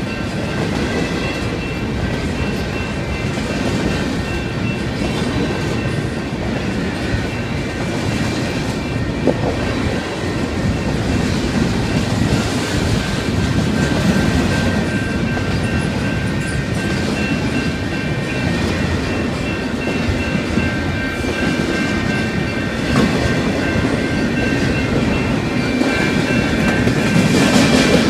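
Double-stack intermodal freight train's wagons rolling steadily past, with a continuous noise of wheels on rail and several steady high-pitched tones over it; it grows a little louder near the end.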